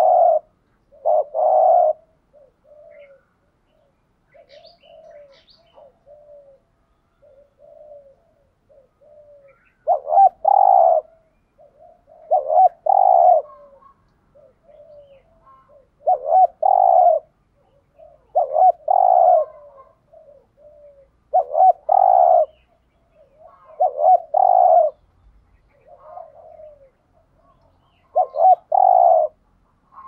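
Spotted dove cooing: for several seconds a run of soft, short coos, then from about ten seconds in loud two-note coo phrases repeated every two to three seconds, with soft coos between them.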